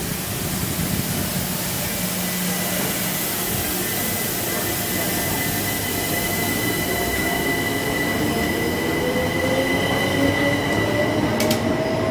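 Greater Anglia electric multiple unit pulling out of the platform, its wheels and running gear rumbling past close by. From about halfway its traction motors whine, rising steadily in pitch as the train gathers speed, over a steady high whine.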